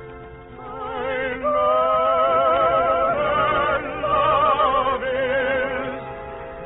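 Orchestral music in an old radio recording, with several melody lines held with a wide vibrato. It swells louder about a second and a half in and softens near the end. The sound is thin and narrow, with nothing high up.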